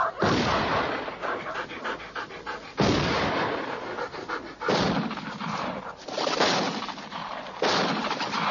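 About five gunshots spaced a second or two apart, each with a long echoing tail, fired at a running dog. A dog is heard between the shots.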